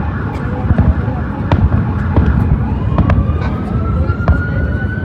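Fireworks shells bursting overhead in rapid succession: a continuous low rumble of booms with many sharp cracks. From about halfway in, a long wail rises slowly in pitch.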